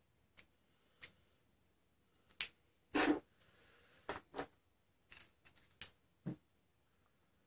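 Scattered small clicks and light knocks of hands handling foam-dart blaster parts, about a dozen in all. The loudest is a short rattle about three seconds in, and a quick cluster comes near the end.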